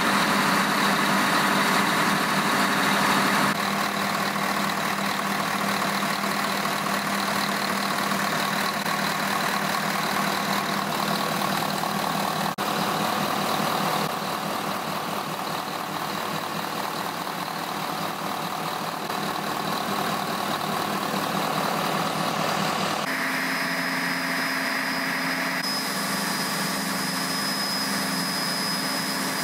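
Large marine diesel engine running steadily in a yacht's enclosed engine room during its test run, a continuous machine drone whose tone shifts abruptly a few times, with a thin high whine in the last few seconds.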